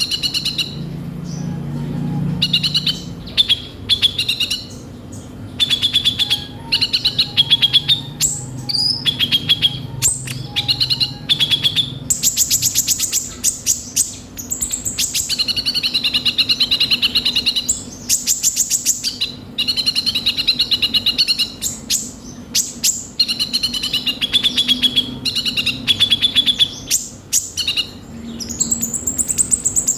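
Kolibri ninja sunbird singing a busy, fast song full of rapid chittering trills and high chirps, in repeated bursts with short pauses. A faint steady low hum runs underneath.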